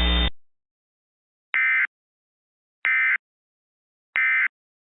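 Three short bursts of Emergency Alert System digital data tones, the end-of-message (EOM) code sent three times a little over a second apart, signalling the end of the alert. A buzzing hum cuts off just after the start.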